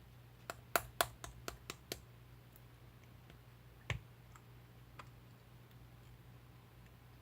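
Slime being pressed and worked by hand, giving a quick run of sharp clicking pops from about half a second to two seconds in, then a single louder click near four seconds and a few faint ones after.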